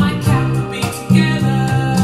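Recorded band music played through a pair of Bose 901 loudspeakers and picked up in the room: a bass line of repeated notes under regular drum hits.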